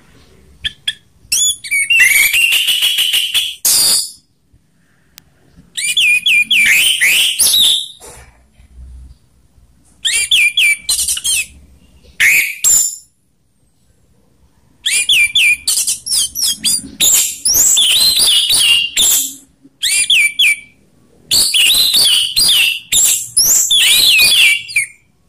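Orange-headed thrush (anis merah) singing its full 'ngeplong' song: loud, fast runs of rich whistled notes sweeping up and down. The song comes in about six bouts, each one to four seconds long, with short pauses between them.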